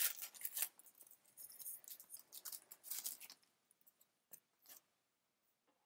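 Foil booster-pack wrapper crinkling and rustling in the hands as the pack is opened, a run of short crackly bursts over about three seconds, then a few faint ticks.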